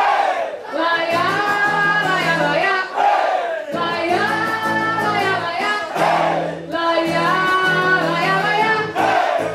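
Music: a song with sung vocals over an instrumental backing, the singing in phrases a few seconds long.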